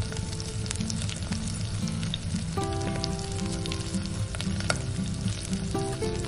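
Shredded vegetable roll filling sizzling in a hot steel karahi over a gas flame, a steady frying hiss with scattered sharp crackles.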